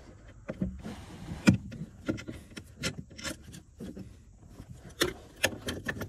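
Hand ratchet with a 10 mm socket clicking and knocking on a nut of the accelerator pedal's mounting studs: a run of irregular sharp metal clicks, the loudest about a second and a half in.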